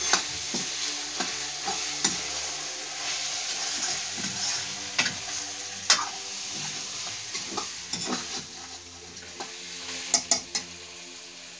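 Mutton frying with a steady sizzle in a steel wok, stirred with a metal spoon that scrapes and clinks against the pan. There are a few sharp clinks, one about six seconds in and a cluster just after ten seconds.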